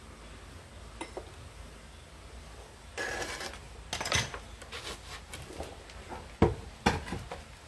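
Glaze-fired pottery clinking and knocking as pieces are handled while a wood-fired kiln is unloaded, with a short scrape about three seconds in and two sharper knocks near the end.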